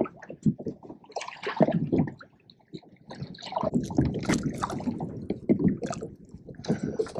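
Sea water splashing and dripping in irregular bursts as a small shark is lifted by hand out of the water into a kayak.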